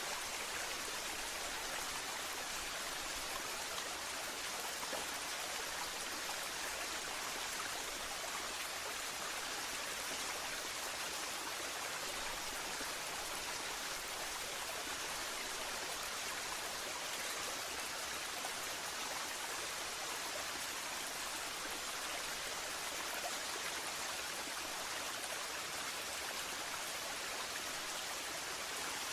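Waterfall: a steady, unbroken rush of falling water, strongest in the hiss range, with no change in level.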